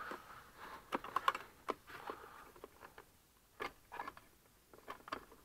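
Scattered light plastic clicks and rattles, some a fraction of a second apart: wiring-harness connectors being unclipped by hand from the underside of a removed centre-console trim panel of a 2018 Mazda CX-5.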